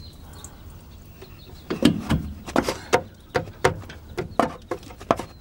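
A run of irregular short knocks and clunks, starting about two seconds in, as a 2008 Hyundai Sonata's rear shock absorber is pulled down and angled by hand to fit it onto its mount.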